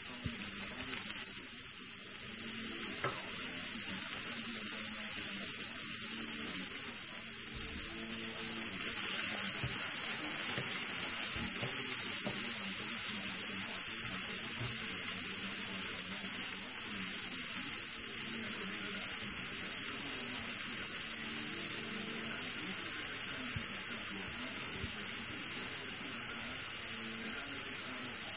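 A steady hiss, strongest in the high range, with faint muffled sounds beneath it.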